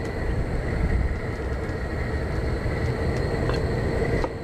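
Steady low rumble, easing off just before the end, with a few faint taps of a chef's knife cutting through a tomato onto a plastic cutting board.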